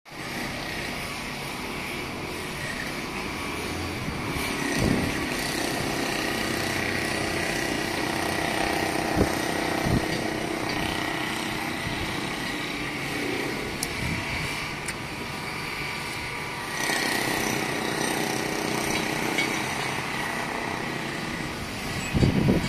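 Steady outdoor city noise, mostly the hum of distant traffic, with a few short low bumps.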